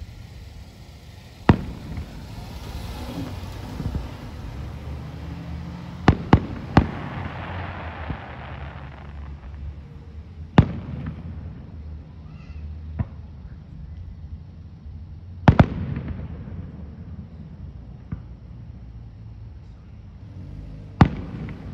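Aerial fireworks shells bursting with sharp bangs every few seconds, including a quick run of three and a close pair, over a steady low background rumble.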